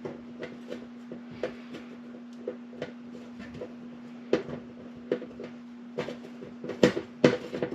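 Hand nut driver loosening the mounting screw of an oven heating element: scattered light metallic clicks and knocks, busier and louder near the end, over a steady low hum.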